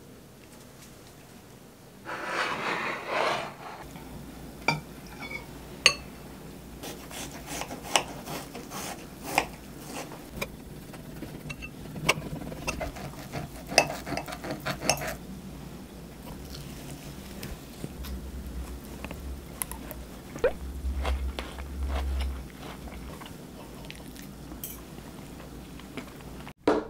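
Knife and fork clicking and scraping on a ceramic plate while cutting steak into bite-size pieces, with many sharp clinks through the first half. A short rustling burst comes about two seconds in.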